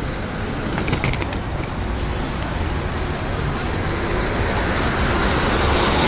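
Motor vehicle running with steady road noise, a low rumble that grows louder over the last couple of seconds.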